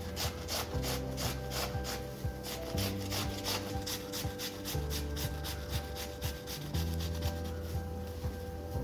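Rhythmic rasping, scraping strokes, about four or five a second, that stop shortly before the end, over background music.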